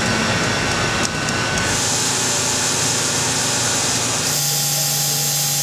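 CNC machine tools cutting aluminum mold parts, a steady machining noise with a strong hiss of coolant spray. The sound shifts a few times, and from about four seconds in a steady hum and whine sit under a louder hiss.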